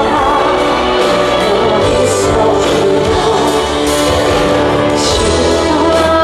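Live music, a woman singing a slow, sweet ballad over instrumental accompaniment, amplified through a PA.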